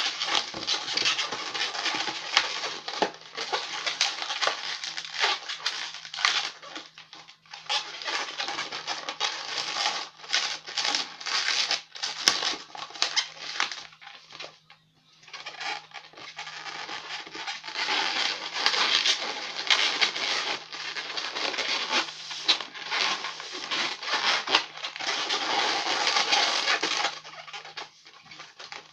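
Long latex modelling balloon being twisted by hand, rubbing and squeaking in quick runs of strokes, with brief pauses about seven and fifteen seconds in.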